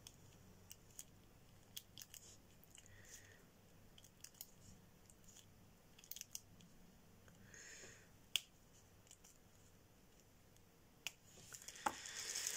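Faint, scattered small clicks of metal tweezers picking resin diamond-painting drills from a plastic tray and pressing them onto the canvas, one sharper click about eight seconds in. Near the end the tray is handled with a rising rustle of drills.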